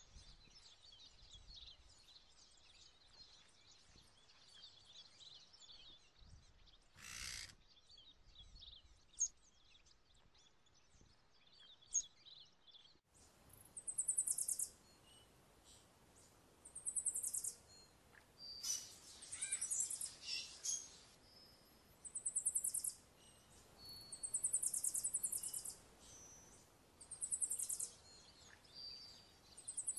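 Faint high bird chirps and twitters, then from about halfway through a run of short, high, rapid trills about a second long, repeating every couple of seconds.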